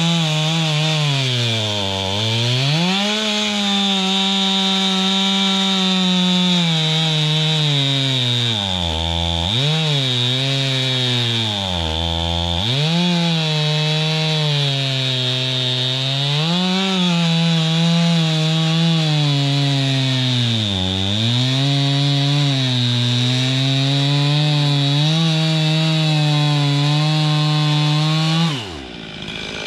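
Chainsaw running at high revs while cutting through a log. Its engine note sags several times under load in the wood and picks back up. It cuts off abruptly near the end.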